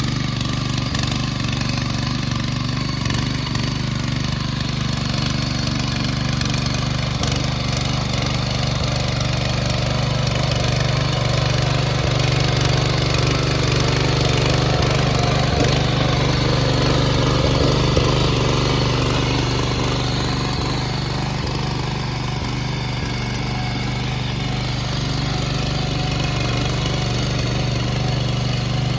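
Small petrol engine of a walk-behind power tiller running steadily as its rotary tines churn through wet, waterlogged soil.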